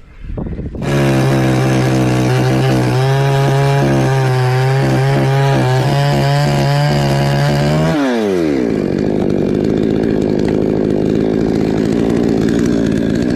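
Chainsaw starting up loud under a second in and running at high revs with a steady note; about eight seconds in its pitch drops sharply and it carries on running at a lower, steady note.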